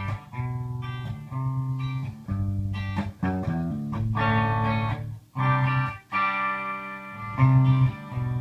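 Electric guitar playing a heavy-metal riff as a wake-up alarm, chords and single notes with brief breaks between phrases.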